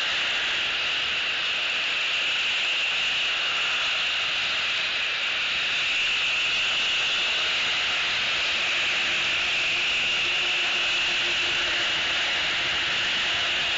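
A steady, high-pitched outdoor chorus of calling animals, unbroken throughout, over a constant hiss.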